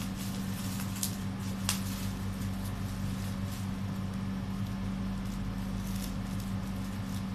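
Bubble wrap being handled and cut open with scissors: faint rustling with two sharp snips about a second in, over a steady low hum.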